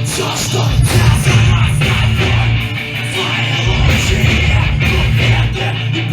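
Live hardcore punk band playing loud, with electric guitars prominent over the full band.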